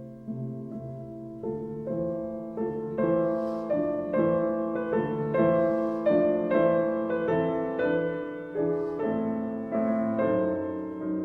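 Solo piano music, slow and gentle, with notes and chords struck about twice a second.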